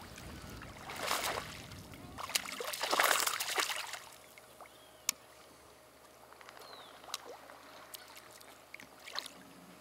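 Water splashing as a tararira (wolf fish) strikes a surface lure, the loudest splash about three seconds in after a smaller one about a second in. Faint lapping water and a few small ticks follow.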